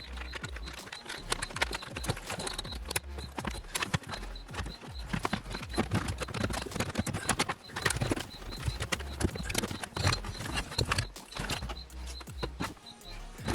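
Irregular clicking and knocking of plastic interior trim panels being handled and pressed back into place.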